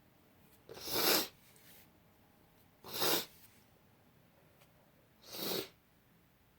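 A woman's stifled sneezes, three in a row about two seconds apart, each a short noisy burst, the last a little softer.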